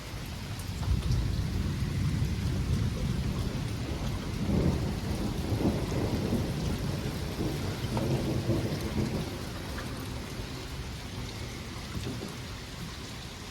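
Long rolling rumble of thunder that builds about a second in, is strongest in the middle and fades toward the end, over steady heavy rain.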